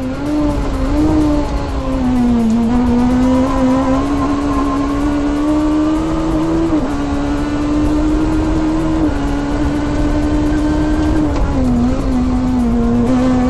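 Toyota Starlet rally car's engine running hard at high revs. The pitch sags briefly about two seconds in and again near the end, and drops sharply twice in the middle as gears change.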